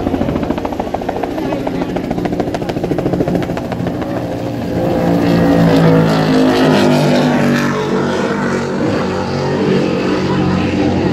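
Offshore racing catamaran's engines running at full speed, growing louder about five seconds in as the boat passes close, the engine note sliding lower as it goes by.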